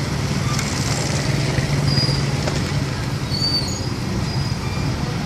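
Steady low rumble of running engines, with a few short high chirps about two and three and a half seconds in.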